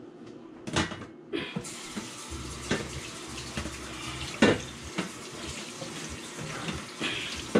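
Kitchen tap turned on about a second and a half in, water running steadily into a stainless-steel sink, with a few sharp knocks of things being handled at the sink, the loudest about four and a half seconds in.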